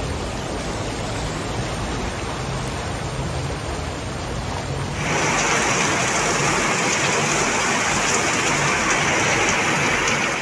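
Heavy rain and rushing floodwater on a flooded street, heard as a steady hiss of water. About halfway through it jumps to a louder, brighter rush of water.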